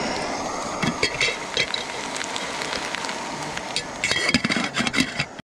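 Metal camp cookware clinking in two short clusters, about a second in and again near the end, over a steady hiss.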